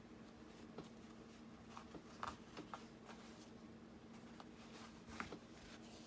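Near silence with faint handling sounds: a few soft ticks and rustles as cloth strips are wrapped and knotted around a fabric-covered journal cover, over a low steady hum.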